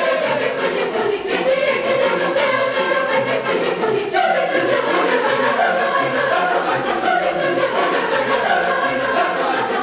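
Large mixed choir of men's and women's voices singing together, with a new phrase coming in sharply about four seconds in.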